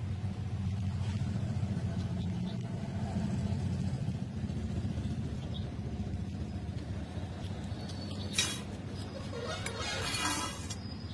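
Steady low background rumble. A short sharp hiss comes about eight seconds in, and a louder noisy swell around ten seconds.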